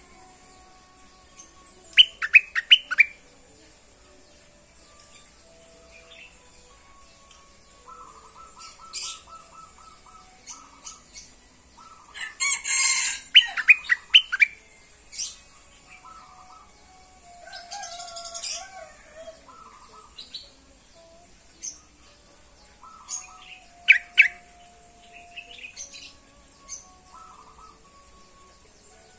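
Caged merbah lekir bulbul singing in short bursts of quick chirping notes, loudest about two seconds in, again near the middle and once more near the end, as the bird is just starting to warm up into song. Other birds call faintly between the bursts.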